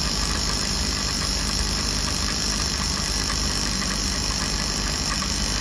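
MerCruiser 4.3 L V6 inboard engine running steadily at idle, with one plug lead firing across an adjustable spark tester set to a very wide gap. The tester's spark snaps rapidly and misses a few sparks now and then, while the Delco EST ignition keeps the engine running.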